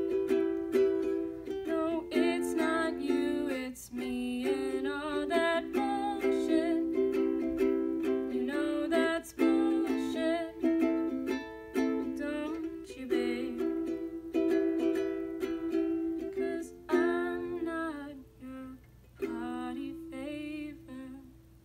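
Ukulele strummed in chords with a young woman's voice singing over it. Near the end the strumming stops and a last chord rings out and fades.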